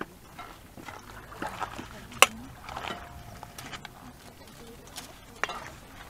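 Metal ladle scraping and knocking against a kazan as stew is served, with one sharp clink about two seconds in and a lighter knock near the end; faint voices in the background.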